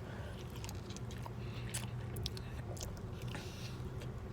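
A person chewing a mouthful of steak and grilled-cheese burrito, with small scattered clicks of the mouth and food, over a low steady hum.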